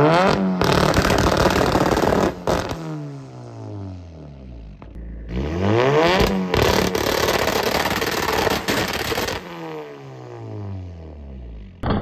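Turbocharged Chevy Cruze 1.8 four-cylinder revved twice against the two-step launch-control rev limiter. Each time the revs climb, hold at one steady pitch for two to three seconds with sharp pops from the exhaust, then fall back.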